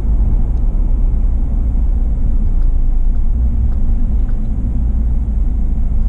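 Steady low rumble of a car being driven at low speed, heard from inside the cabin: engine and tyre noise.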